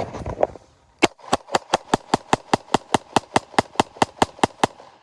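A firearm firing a rapid string of about eighteen evenly spaced shots, roughly five a second, starting about a second in and stopping shortly before the end.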